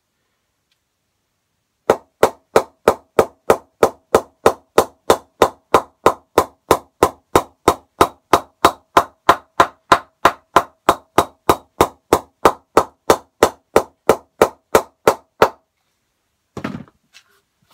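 A wooden mallet knocking in a new Robinsons Sensation cricket bat: a long run of evenly spaced strikes on the willow face, about three a second, starting about two seconds in and stopping near the end, followed by a brief scuffle.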